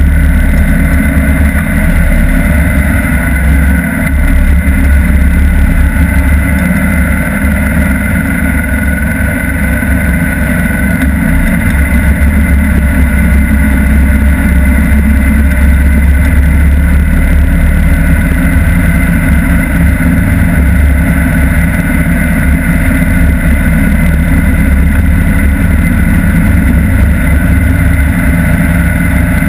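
Cruiser motorcycle riding at steady road speed, its engine running under heavy wind rush on a microphone mounted low by the front wheel.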